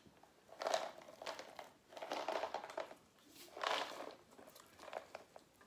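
Crinkling and rustling in about four short bursts as the pull-tab inner seal is peeled off a plastic supplement bottle and the bottle is handled.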